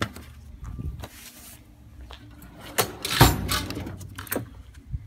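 Hand tools clanking and rattling as they are rummaged in an open metal toolbox drawer, with a few sharp metallic knocks and the loudest clank about three seconds in.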